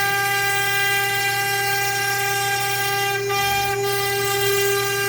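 Spindle of a home-built CNC router running with a steady high whine while surfacing the machine's table flat. Two faint ticks come a little past the middle.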